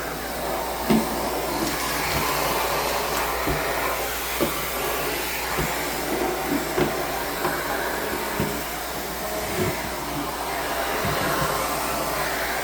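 Central vacuum cleaner running with a bristled hard-floor attachment: a steady rushing suction, with scattered light knocks through it.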